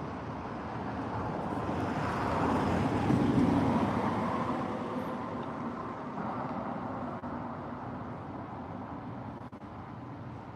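Outdoor ambience: a continuous rushing noise that swells to a peak about three seconds in and then slowly fades.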